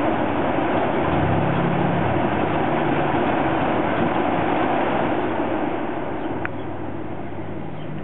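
Small 240-volt single-phase furnace squirrel-cage blower running on its medium-low speed: a steady rush of air with a low hum, getting somewhat quieter over the last couple of seconds.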